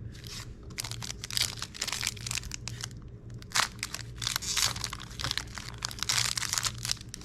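Foil Pokémon TCG booster pack wrapper crinkling and crackling in the hands as it is torn open, a fast, irregular rustle.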